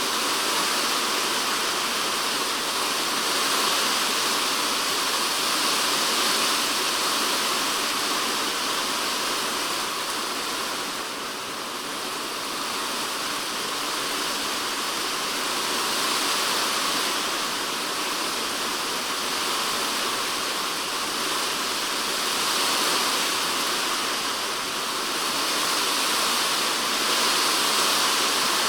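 Typhoon rain falling on a polycarbonate shed roof, heard from inside the shed as a dense, steady hiss of countless drops. It eases slightly about eleven seconds in and then builds again.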